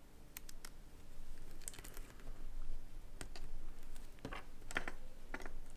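Scattered light clicks, taps and tape crackles as fingers peel back gauge-handling tape and press on a steel beam lying on a desk.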